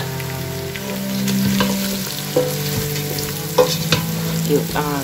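Meat sizzling in a stainless steel pot while a wooden spoon stirs spices through it, with a few knocks and scrapes of the spoon against the pot. A steady low hum runs underneath.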